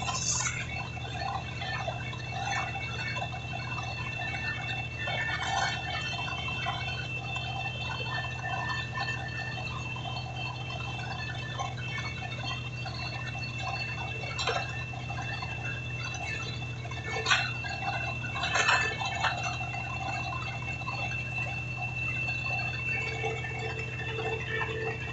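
Road-concreting machinery running with a steady low hum and a thin high whine, over wet splashing and dripping as fresh concrete is worked, with scattered short knocks.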